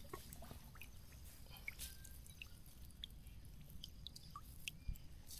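Faint scattered drips and small wet clicks from a mesh shrimp trap being handled over shallow water as its catch of small freshwater shrimp is shaken out into a mesh bag.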